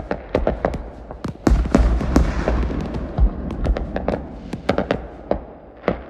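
Fireworks going off: a rapid, irregular run of sharp pops and crackles, with a deep boom about a second and a half in whose rumble fades over the next second, then more scattered pops.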